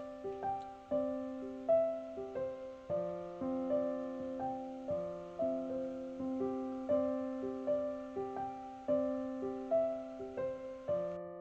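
Background music: a slow, gentle piano tune, with notes struck one after another and fading over lower held notes.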